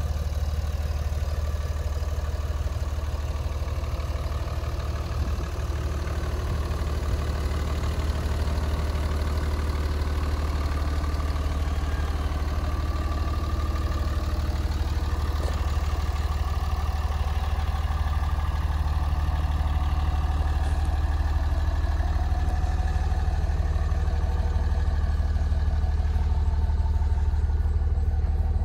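Dodge Ram 2500 pickup's engine idling steadily with a deep, even hum, growing a little louder near the end.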